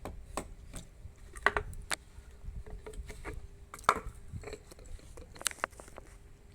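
Irregular clicks and light knocks of small metal parts and tools being handled, typical of reassembly work on a tankless water heater, with a faint steady hum underneath.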